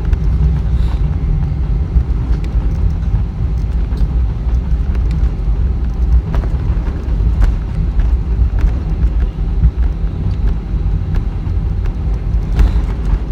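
Airbus A320 jet engines and airframe heard from inside the passenger cabin: a loud, steady deep rumble, with scattered light knocks and rattles.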